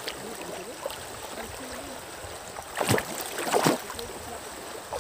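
Shallow stream running over rocks, with two loud splashes of water about three and three and a half seconds in.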